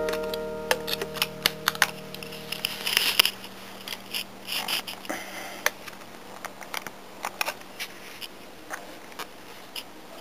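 A strummed guitar chord from the music rings out and fades over the first couple of seconds. Then come scattered light clicks and rustles from a plastic soap dispenser being handled.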